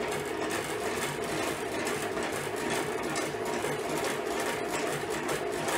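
Dadant radial honey extractor spinning under its lid-mounted motor: a steady mechanical whir with a low pulse repeating a little over twice a second as the loaded basket turns.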